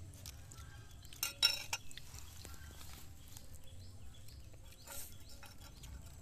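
Eating utensils clinking against a ceramic bowl: a few sharp clinks about a second and a half in and another near five seconds.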